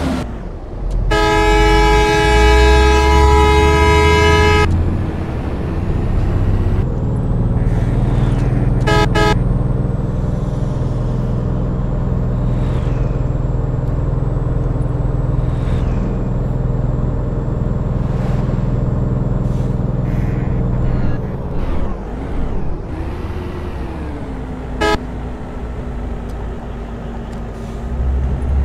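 Road traffic: a vehicle horn blasts for about three and a half seconds near the start, then gives short toots twice more, over a motor vehicle's engine running steadily.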